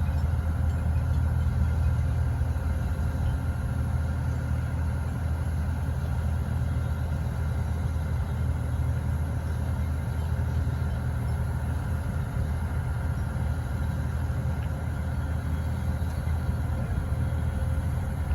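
An engine running steadily at idle: an even, low rumble with no change in pace.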